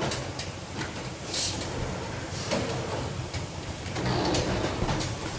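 Factory machine running steadily with a low rumble, with a short sharp hiss of released air about a second and a half in and a few light clicks.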